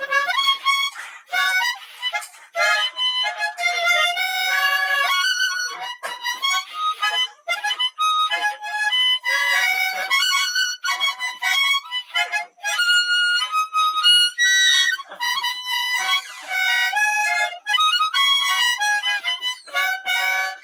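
Harmonica played solo: a tune of chords and single notes in short phrases, with brief breaks for breath between them.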